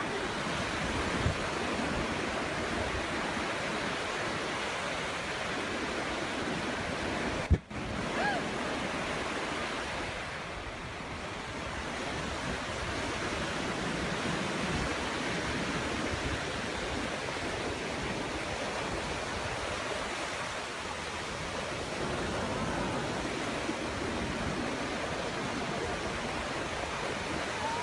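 Surf breaking and washing onto a sandy beach, a steady rush of waves throughout. About seven and a half seconds in there is one sharp click with a brief dropout.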